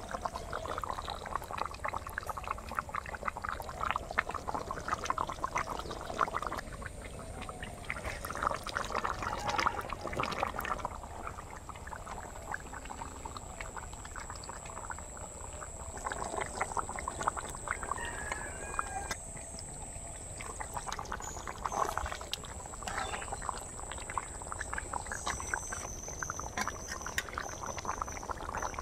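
Thick fish-and-taro curry bubbling in a metal karai, a dense run of small pops and splutters as it simmers.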